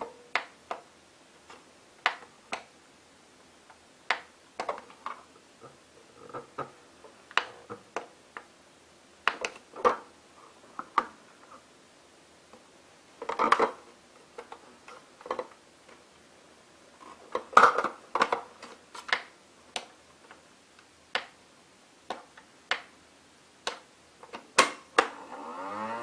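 Hard plastic toy vacuum cleaner being handled and turned over: irregular clicks and knocks of its plastic body and parts, with a couple of louder clatters about halfway and two-thirds of the way through.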